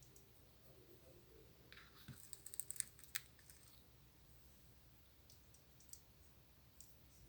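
Near silence, broken by a quick cluster of faint clicks about two to three seconds in, with a few single ticks later on.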